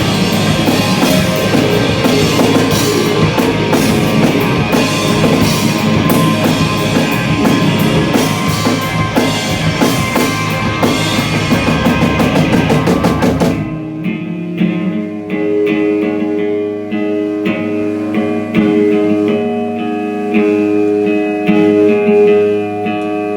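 Live rock band playing, with drum kit, bass and guitars together; about 14 seconds in the drums and band cut out, leaving a guitar picking single sustained notes.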